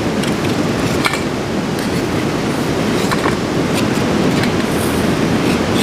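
Steady rush of a mountain stream, with a few light metallic clicks as a knife slides grilled chicken tikka off steel skewers onto a steel plate.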